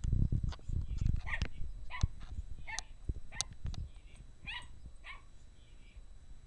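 Small dog giving about seven short, high yips over a few seconds, fading out near the end, agitated at a hamster in a clear exercise ball beside it. A low rumble sits under the first yips.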